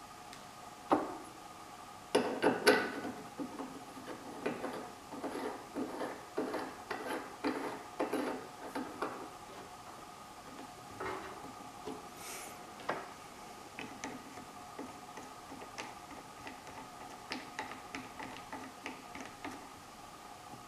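Metal centre rod of an Arsegan EasyBrew 30 being screwed by hand into a perforated metal false-bottom plate: irregular metallic clicks and light knocks as the threads turn and the parts touch, thick in the first half and sparser later.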